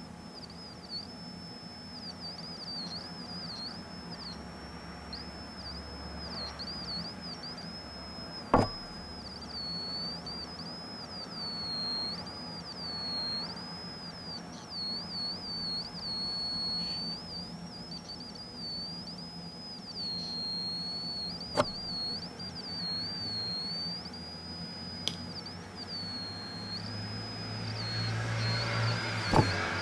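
A 555-timer Atari Punk Console synthesizer sounding a single high electronic tone through its small speaker. The pitch wavers and dips over and over, with a few sharp clicks along the way.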